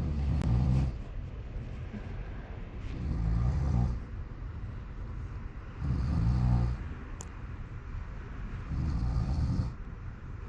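Snoring: four low, rattling snores, each about a second long, coming steadily about every three seconds.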